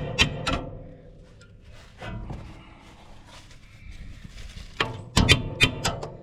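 Background music with a steady beat that drops out about half a second in, leaving a quieter passage, and comes back near the end.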